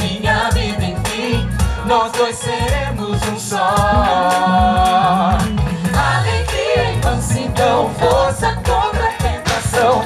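A group of singers on microphones sings together in harmony over a live band, holding one long chord about midway.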